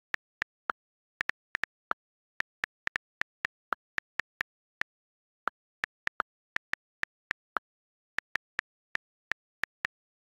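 iPhone on-screen keyboard key clicks as a message is typed: quick, irregular sharp ticks about three a second, with a few slightly lower-pitched ticks where the space bar is pressed between words. There is dead silence between the clicks.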